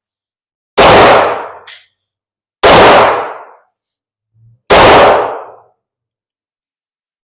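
Three pistol shots, spaced about two seconds apart, each a sharp crack with a short ringing tail.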